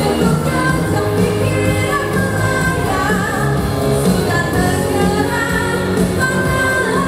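A woman singing a pop song live into a handheld microphone over instrumental backing.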